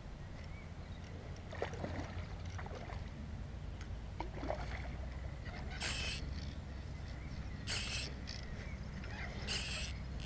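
Wind rumbling on a head-mounted camera's microphone, with three short hissing rushes about six, eight and nine and a half seconds in while a hooked carp is being played on a bent rod.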